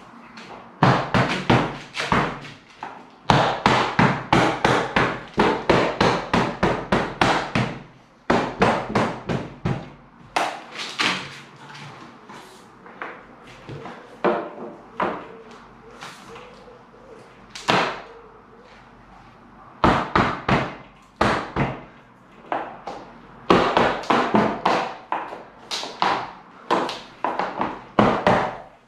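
Hammer tapping in quick runs of about five blows a second, with short pauses between the runs, while trim is fixed onto a UPVC bay window frame.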